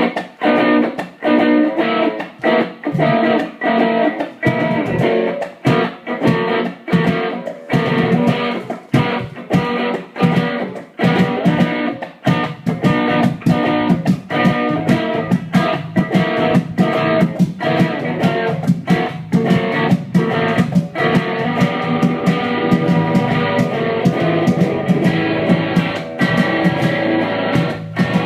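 Two electric guitars playing live through amplifiers: choppy, rhythmic struck chords at first, with a fuller, steadier low part coming in about twelve seconds in.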